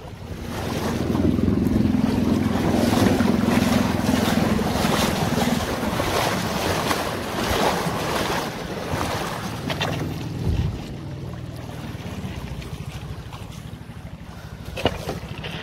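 River water rushing and splashing against a wooden boat as it is poled up a shallow riffle, with wind buffeting the microphone. The water noise is loudest for the first ten seconds and softer after; there are two sharp knocks, one about ten seconds in and one near the end.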